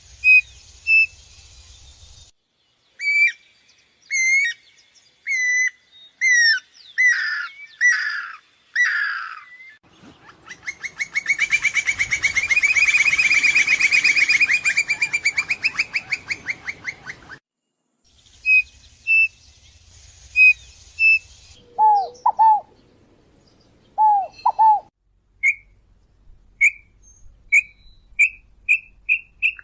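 Several birds singing and calling in turn: a run of whistled notes that slur downward and grow longer, then a long rapid trill lasting about seven seconds that swells and fades. Short high notes follow, then lower paired calls, and near the end a series of short notes that comes faster and faster.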